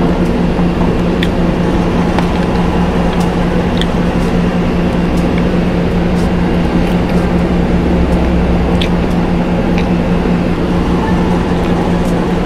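A steady, loud machine hum with a low rumble underneath, unchanging throughout, with a few faint short clicks over it.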